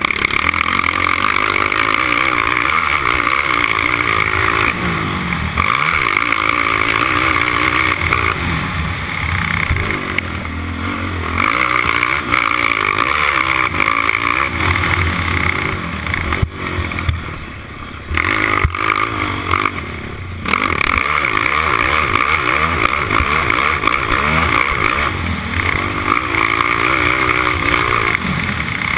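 Four-stroke sport quad engine running hard under race throttle, its pitch rising and falling as the rider works the throttle. It is heard close from on board, and it drops back briefly twice about two-thirds of the way through as the throttle is closed.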